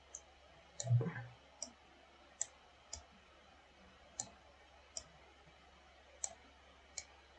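Computer mouse clicking, about nine single clicks at uneven intervals, with a duller thump about a second in that is the loudest sound.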